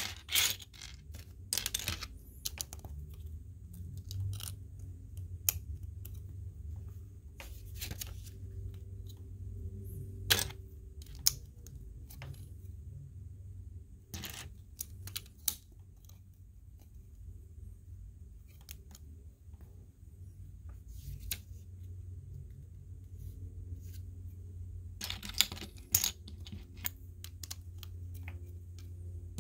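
Small hard plastic Lego pieces clicking and clattering as they are handled and pressed together during building. The clicks are scattered, with busier runs near the start and about 25 seconds in, over a steady low hum.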